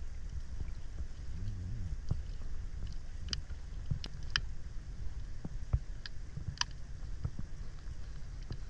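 Water lapping and sloshing around a camera held at the water's surface, a low uneven rumble, with scattered small splashes and drip-like clicks.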